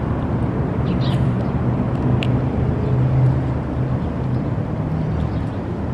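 Steady low rumble of road traffic or an idling vehicle engine, with a few faint clicks about one and two seconds in.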